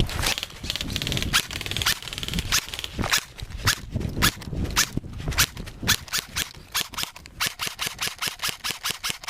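Footsteps of someone running: a steady series of sharp footfalls that quickens to about four or five a second later on.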